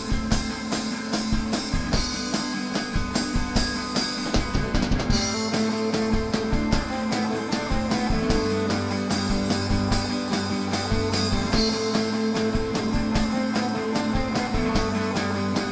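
Live rock band playing with electric guitars, bass guitar and drum kit over a steady beat; the bass notes grow stronger about halfway through.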